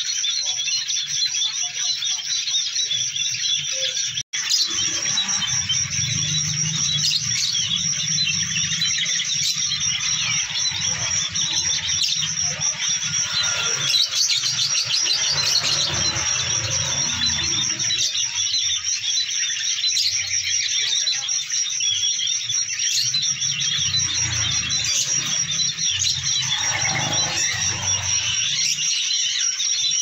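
Songbird chirping and twittering continuously over a steady high-pitched trill, with a brief cut-out about four seconds in.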